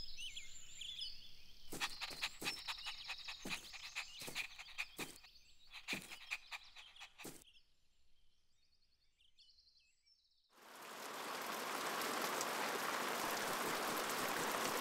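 A run of short, sharp clicks for several seconds, then a pause, then steady rain starts about eleven seconds in, an even hiss that holds.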